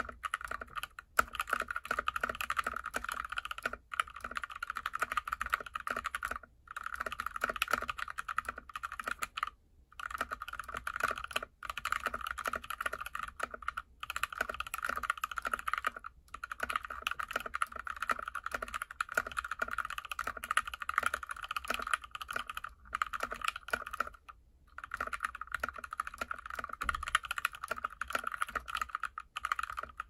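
Fast typing on a GK61x mechanical keyboard with Tealios v2 linear switches lubed with Krytox 205g0 in an aluminum plate, lubed Durock plate-mount stabilizers and PBT cherry-profile keycaps. A dense run of clacky keystrokes, with a few brief pauses.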